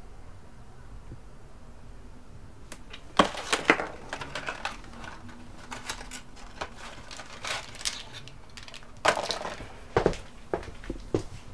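Small cardboard box being handled and opened: scattered clicks and rustles of card, with sharper knocks about three seconds in and again near the end.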